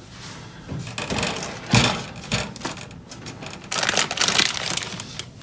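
Hands rummaging in a crinkly plastic bag and handling cables inside a steel PC case: irregular rustling and clicking, with a sharp knock about two seconds in and a busier spell of rattling around four seconds in.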